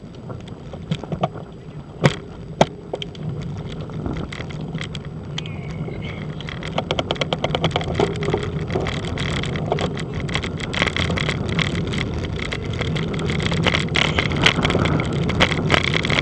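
Wind and road noise from a bicycle descent, growing louder as the bike picks up speed, with many sharp rattling clicks from the bike over the road surface.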